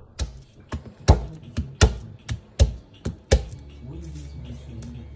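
Fist thumping garlic cloves against a plastic chopping board to crack their skins: about nine sharp knocks in quick succession. The knocks stop about three and a half seconds in.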